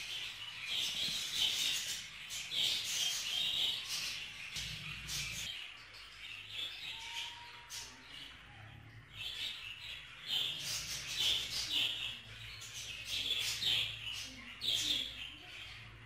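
Budgerigars chattering in quick, continuous runs of chirps and warbles, easing off briefly a little past the middle.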